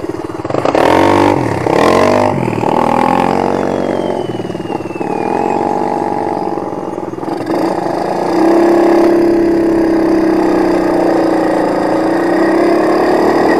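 Quad (ATV) engine revving in a few quick rises and falls, then running steadily and louder from about eight seconds in.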